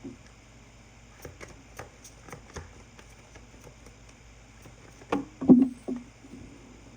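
Tarot cards being handled: a run of light clicks and taps as cards are drawn and laid down, then a louder cluster of knocks and rustles about five seconds in.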